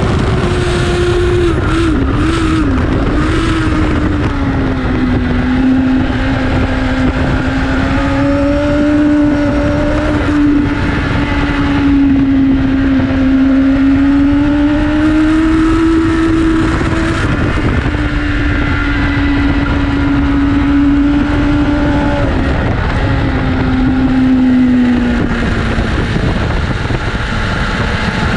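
Superbike's inline-four engine under way on a race track, its note rising and falling as the throttle opens and closes through the corners, with a quick dip and wobble about two seconds in, over a heavy rush of wind.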